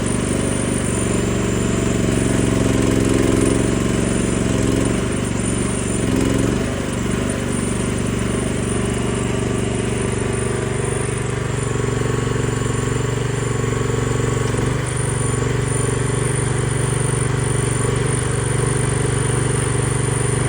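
Small mini excavator engine running at working throttle, its tone dipping and shifting under load as the hydraulics drive the boom and bucket through a dig.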